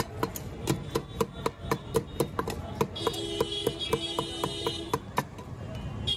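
Wooden stick pounding starfruit and masala in a steel bowl: rapid knocks, about four a second, each with a short metallic ring, stopping about five seconds in. A vehicle horn sounds for nearly two seconds in the middle.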